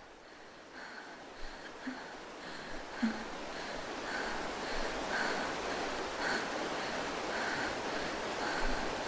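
Steady rain that grows louder over the first few seconds, with a soft sound repeating at an even pace, about one and a half times a second.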